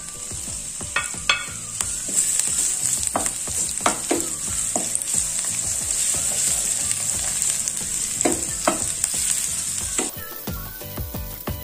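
Sliced shallots, garlic and Indonesian bay leaves (daun salam) sizzling in hot oil in a non-stick pan, with a wooden spatula scraping and tapping against the pan as they are stirred. The sizzle cuts off suddenly near the end.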